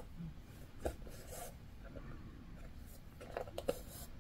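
Needle and embroidery thread being worked through layered fabric and waste canvas by hand: faint rasps as the thread is drawn through, and a few small ticks as the needle pierces the cloth, about a second in and again past the three-second mark.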